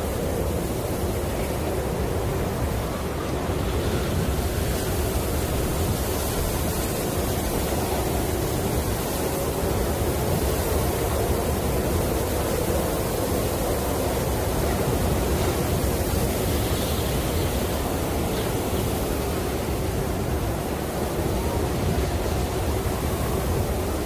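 Snowstorm wind blowing steadily, an even rushing noise that holds at the same level without breaks.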